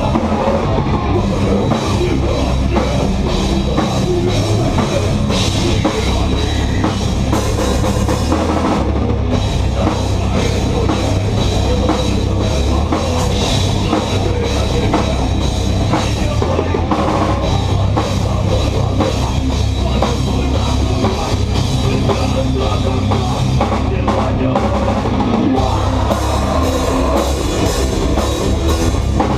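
Live rock band playing loud and steady, with heavy drums, cymbals and distorted guitars, heard through a club's PA.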